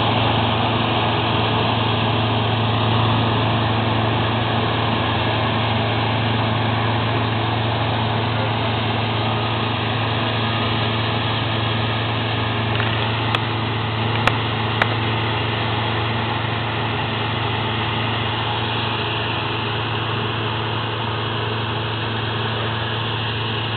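Claas Tucano 320 combine harvester running steadily while harvesting, an even engine hum that fades slightly as the machine moves away. Three sharp clicks come a little past the middle.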